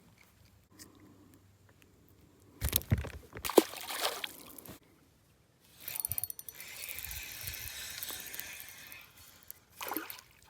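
Water splashing in a few loud bursts, then a fishing reel winding in line with a steady fine ticking whir.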